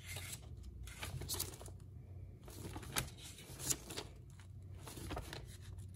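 Thin antique paper pages rustling and crackling as they are leafed through by hand, with a few sharper crisp flicks, the loudest about three seconds in and another shortly after.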